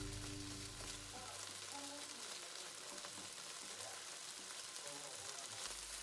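Bacon sizzling and crackling softly in a non-stick frying pan as the slices are laid out with cooking chopsticks.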